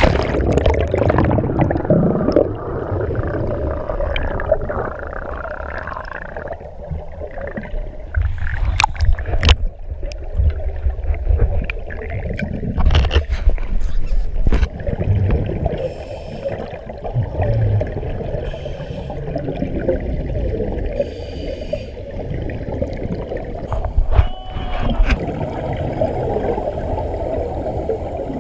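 A splash as the camera plunges into the sea, then the underwater sound of a scuba dive: gurgling bubbles and regulator breathing over a steady low rumble, with scattered sharp clicks and knocks.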